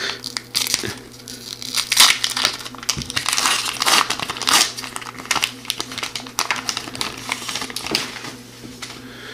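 Shiny foil wrapper of a hockey-card pack being torn open and crinkled by hand: irregular crackling rustles that ease off near the end as the cards come out.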